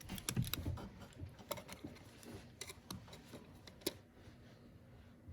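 Faint, scattered light clicks and small metallic taps from a screwdriver being handled around a plastic oil filter housing.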